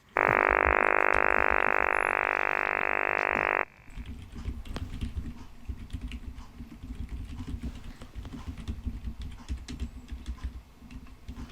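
A loud, steady buzzing tone lasting about three and a half seconds that stops abruptly, followed by soft, irregular tapping and clicking.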